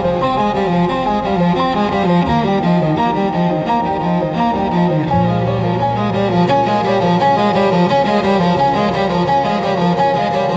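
Slow cello music: bowed notes moving from pitch to pitch, with a low note held from about halfway through.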